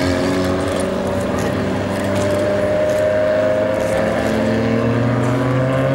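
Alfa Romeo 4C's turbocharged four-cylinder engine pulling as the car accelerates, its pitch climbing slowly, easing off about four seconds in and climbing again near the end.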